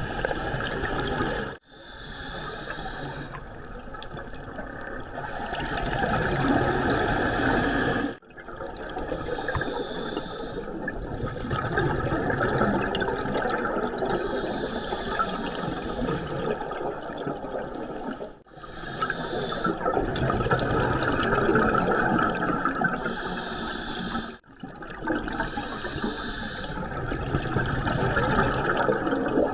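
Scuba diver breathing through a regulator underwater: hissing inhalations alternate with bubbling exhalations every few seconds. The sound breaks off abruptly four times.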